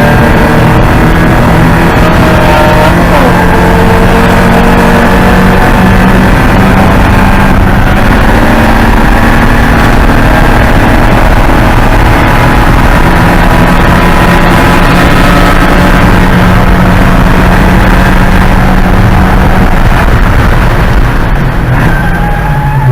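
Porsche 944 Spec race car's four-cylinder engine running loud and hard at high revs under racing load, its pitch held fairly steady, then dipping and changing in the last couple of seconds.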